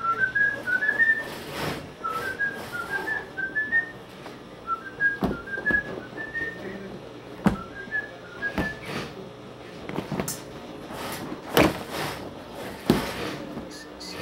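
A person whistling a tune in short quick notes, phrase after phrase, stopping after about nine seconds. Sharp knocks and thuds of handbags being handled and set down on a table come through it, the loudest two near the end.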